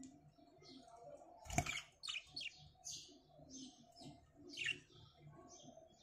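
Budgerigars chirping and chattering, a quick series of short high chirps. A single sharp knock sounds about a second and a half in.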